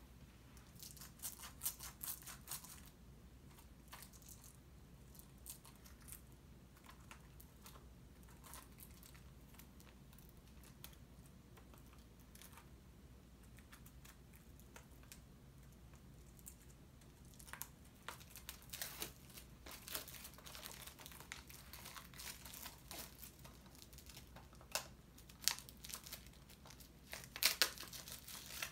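Plastic wrapping on a Blu-ray package being torn and crumpled by hand: irregular crinkling and crackling, busiest in the first few seconds and again in the last ten, with only scattered ticks in between.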